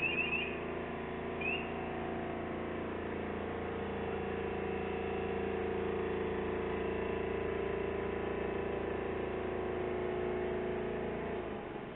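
Diesel engine of heavy track-side works plant running steadily, a drone of several held tones that drops away near the end. A rapid high chirping warning alarm cuts off just after the start, with one more chirp a second or so later.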